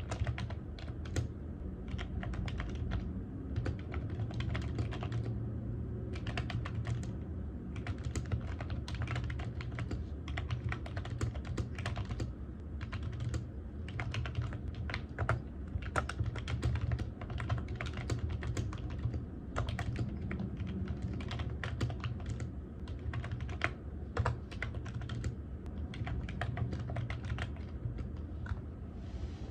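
Continuous typing on a computer keyboard: rapid, irregular key clicks with brief pauses between bursts, over a low steady hum.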